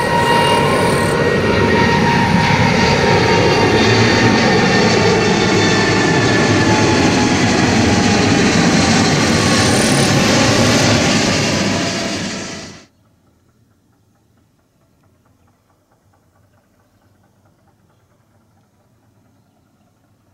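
Boeing 787-8's Rolls-Royce Trent 1000 turbofans at take-off thrust as the airliner climbs out low overhead. It makes a loud jet roar, with engine tones falling in pitch as it passes. The roar cuts off abruptly about thirteen seconds in, leaving only a faint background sound.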